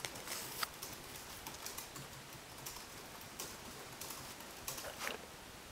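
German shorthaired pointer mouthing and chewing a tennis ball up close: scattered soft clicks and scrapes at irregular intervals.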